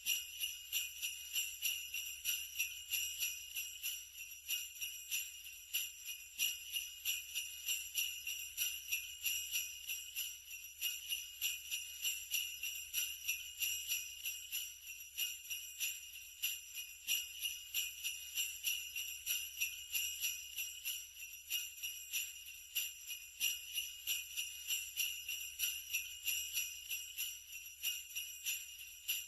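Sleigh bells shaken continuously in a steady rhythm, giving a bright metallic jingle.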